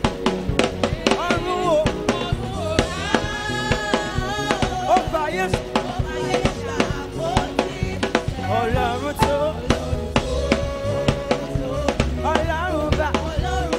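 Live gospel praise-and-worship music: a lead singer with backing vocalists singing over a band with a drum kit keeping a steady beat.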